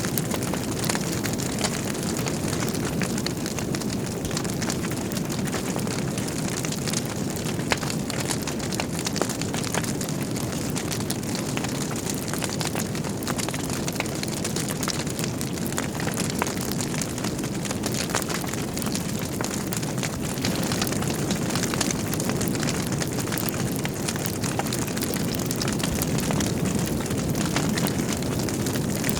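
Logs burning in a fireplace: a steady low rush of flame with frequent sharp crackles and pops scattered throughout.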